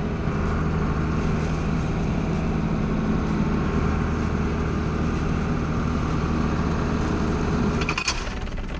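John Deere 4440's six-cylinder diesel engine running steadily at low revs while the tractor backs up to a wagon. Near the end the engine note drops and there is a brief metallic clink as the quick hitch couples to the wagon.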